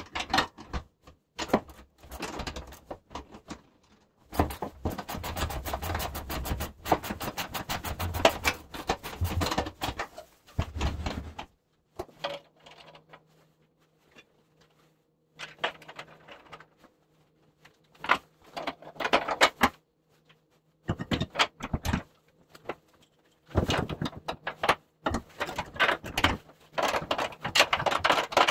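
Metal plow parts and hardware clinking and rattling as they are handled and fitted while a snow plow blade and its return springs are assembled. About four seconds in there is a stretch of rapid, even clicking.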